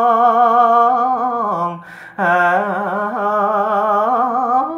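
A man's voice chanting Khmer smot, a Buddhist melodic recitation, in long held notes that waver up and down. The chant pauses briefly for breath about two seconds in, then resumes.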